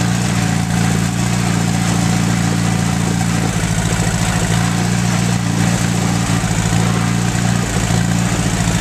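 Allis-Chalmers B tractor's four-cylinder gasoline engine running as the tractor is driven, its note turning uneven and pulsing from about three and a half seconds in. The uneven running is a misfire that the owner thinks needs new spark plugs or a condenser.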